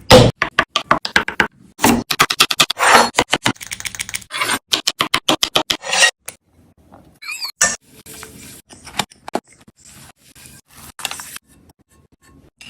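Kitchen cooking sounds: a utensil scraping in quick repeated strokes in runs over the first six seconds, then fainter scattered clicks and a few brief squeaks.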